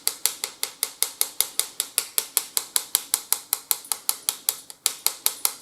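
A sifter dusting icing sugar over a cake, clicking rapidly and evenly at about seven sharp clicks a second, with a brief break near the end.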